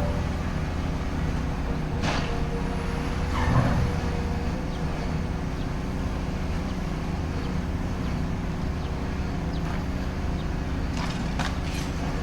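Excavator's diesel engine running steadily, with a few sharp knocks and scrapes of demolition debris, two of them early on and two near the end.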